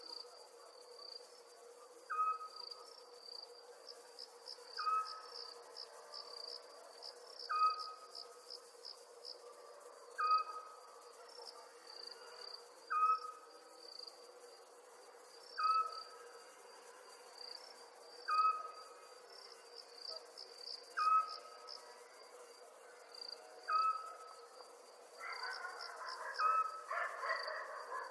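Crickets chirping in a steady, high pulsing trill, over a short piping note that repeats about every two and a half seconds. Near the end a louder, rougher sound swells up beneath them.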